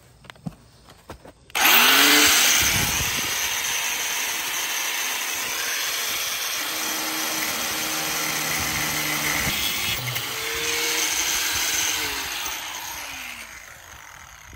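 Angle grinder starting up about a second and a half in with a rising whine, its disc grinding a steel pin clamped in a vise for about ten seconds, then easing off and spinning down with a falling whine near the end.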